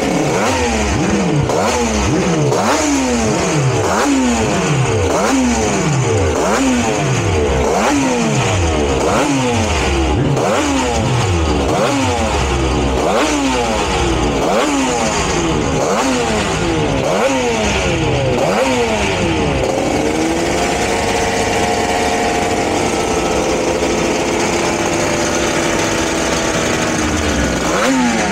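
Four-cylinder two-stroke race bike engine on a warm-up run, blipped on the throttle about once a second, each rev rising sharply and falling away. From about two-thirds through it is held at steady raised revs that sag slowly, then it is blipped again near the end.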